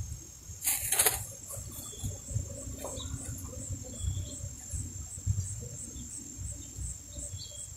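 Insects chirping steadily in the grass, a high buzz pulsing about twice a second, with a brief loud hiss about a second in.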